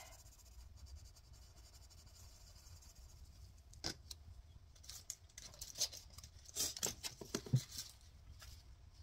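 Light handling noises on a tabletop: a sharp click about four seconds in as a pencil is set down, then a run of scratchy rustles and small taps from hands moving over a laminated paper sheet.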